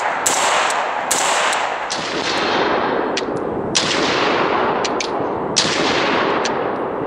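AR-15 in 5.45x39 (Red Army Standard ammo) with a Sintercore Auxetik 3D-printed Inconel muzzle brake, firing a string of shots, roughly one every half second to a second. Each sharp crack is followed by a long rolling echo that runs into the next.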